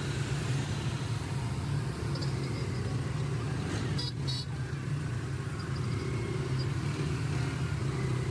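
Auto-rickshaw (tricycle) engine running steadily as it rides along a busy road, with the noise of surrounding traffic; a brief high-pitched sound cuts through about halfway.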